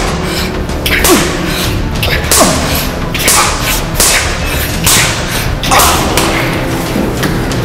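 A quick series of about six punch hits, roughly one a second, each a sharp whack, some with a short falling swish, over background music.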